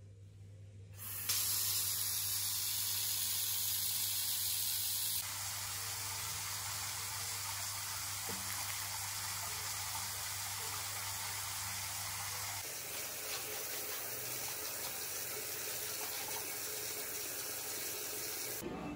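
Water from a bath filler tap rushing steadily into a freestanding bathtub as it fills. It starts about a second in and drops a little in level about five seconds in.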